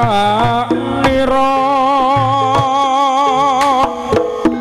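Javanese jaranan gamelan music: a singer holds a long, wavering note in Javanese over sustained gong and metallophone tones, with kendang drum strokes coming in near the end.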